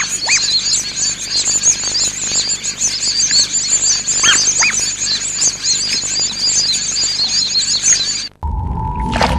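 Crowd of squeeze-toy rubber ducks squeaking, many short high squeaks overlapping in a dense chorus, with a few louder, lower squeaks standing out. A little before the end it cuts off suddenly, giving way to a steady tone over a low rumble.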